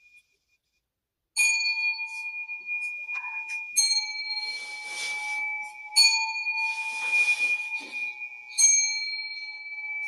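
A bowl bell struck four times, about every two and a half seconds, each strike ringing on with a steady two-tone hum that carries into the next. A soft rustling hiss sounds between the middle strikes.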